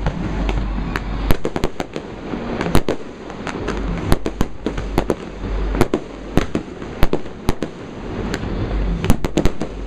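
Fireworks display: a rapid, irregular run of sharp shell bursts and bangs, several a second, over a continuous rumble.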